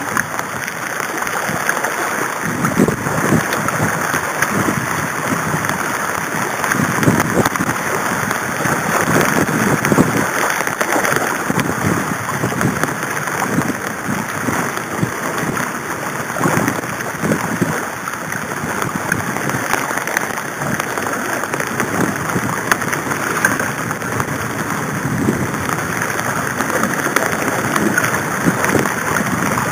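Steady rain falling on a small sailing catamaran and the choppy lake around it, with uneven low rumbles coming and going.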